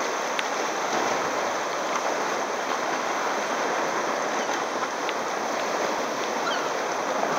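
Choppy sea water sloshing and lapping around a kayak: a steady, even rush of water noise.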